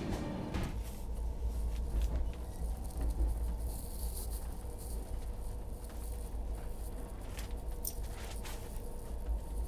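Low steady rumble of a train coach, with scattered light clicks and rattles.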